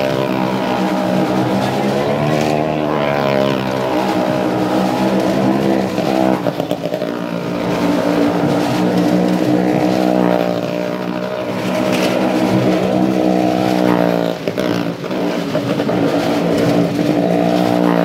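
Motorcycle engine running hard as it circles the wooden wall of a well-of-death drum, its pitch rising and falling in waves with each lap.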